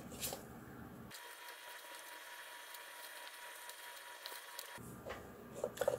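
Faint rustling and a few light clicks of a tissue wiping and rubbing a dusty plastic computer case fan.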